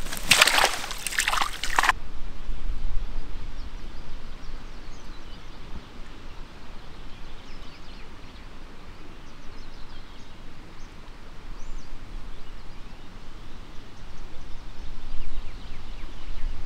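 A keepnet of fish sloshing and dripping as it is handled at the water's edge for the first couple of seconds. Then a quieter riverbank ambience follows, with wind rumbling on the microphone and a few faint high chirps.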